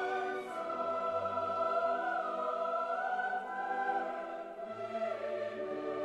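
Slow background music with long held notes that change a few times, in a choral or classical style.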